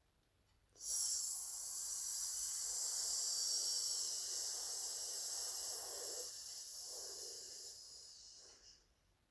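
A loud, steady hiss of background noise. It starts suddenly about a second in, holds for several seconds, then fades away near the end.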